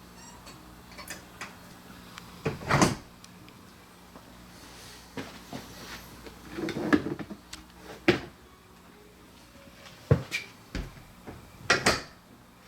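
Hard plastic-and-metal handling clacks from the SIG Sauer P365 pistol and its magazines being handled: about five separate sharp clacks a second or few apart, with quiet between them.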